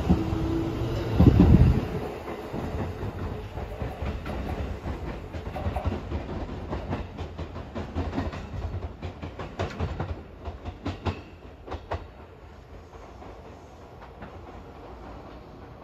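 Seibu 9000-series electric train pulling away from the platform. A loud low rumble comes about a second and a half in, then the wheels clack over rail joints in a long series of sharp clicks that fade as the train recedes.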